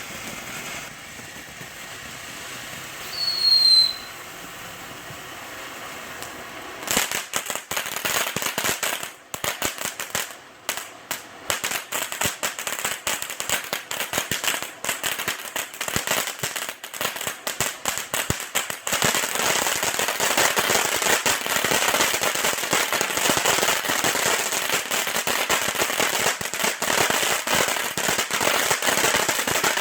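Fireworks: one short falling whistle about three seconds in, then from about seven seconds rapid popping and crackling. From about nineteen seconds it thickens into a continuous dense crackle.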